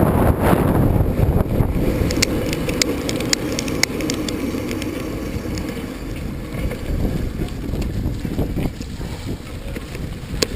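Wind buffeting the microphone on a moving bicycle, over the rumble of tyres on a rough track, with scattered sharp clicks and rattles from the bike; it eases off a little in the second half.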